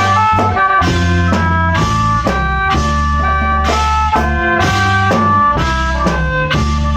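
Khaen wong prayuk band playing: khaen free-reed mouth organ chords over a drum kit and bass with a steady beat.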